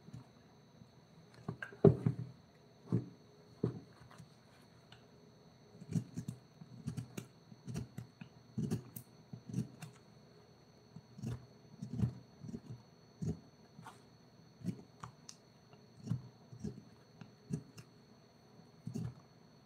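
A series of irregular dull knocks and taps, roughly one a second, with the loudest knock about two seconds in, over a faint steady high whine.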